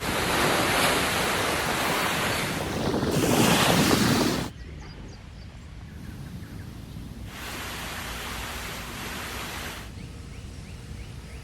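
Ocean surf washing in: an even rushing that swells as a wave breaks about three to four seconds in, then cuts off abruptly. A quieter stretch with a few faint, short high chirps follows, before a second, softer swell of surf around the middle.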